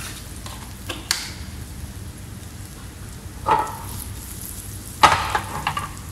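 Chopped shallot and onion sizzling gently in oil and butter in a frying pan, with a few sharp clinks of utensils: one about a second in, one past the middle, and the loudest near the end.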